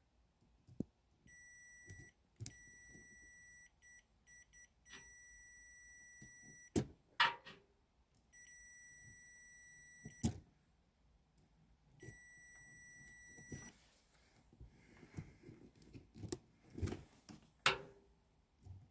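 A multimeter's continuity beeper sounding in steady high beeps, several held for one to two seconds and a few short chirps, as the probes make and break contact. Sharp clicks and knocks of the probes and handling fall between the beeps and are the loudest sounds. The beeping shows continuity while the circuit is checked for a short.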